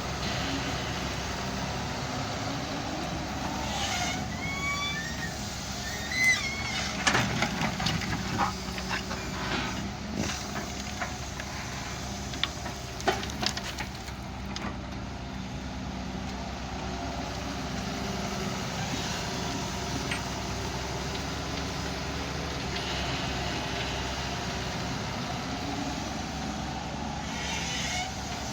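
Hydraulic excavator's diesel engine running steadily, with a run of knocks and short squeaks in the middle as the machine works.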